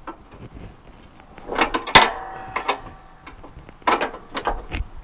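Metal mower-deck hanger parts on a garden tractor clanking and rattling as they are handled and fitted. A sharp metallic clank about two seconds in rings briefly, and another run of clicks and knocks follows near the four-second mark.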